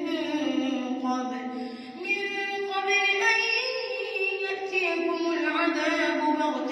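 A boy reciting the Quran in melodic tajweed style, holding long drawn-out notes. After a brief pause about two seconds in, he starts a higher phrase and lets it fall back near the end.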